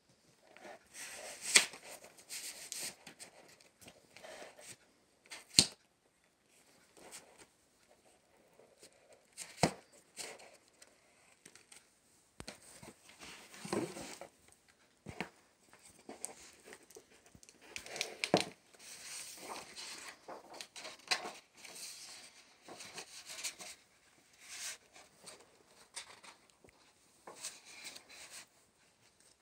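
Paper and cardboard being handled: record sleeves, a hardcover book and paper inserts slid, turned and rustled, with a few sharp taps and knocks in between.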